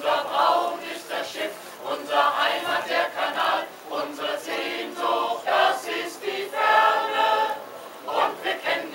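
Mixed choir of men's and women's voices singing together, the sung phrases moving on every second or so.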